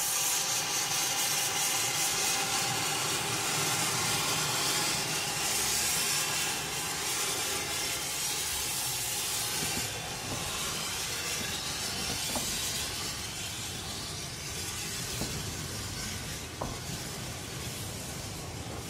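Narrow-gauge steam locomotive pulling away with steam hissing from its cylinders. The hiss eases about ten seconds in as the coaches roll past, their wheels clicking now and then on the rails.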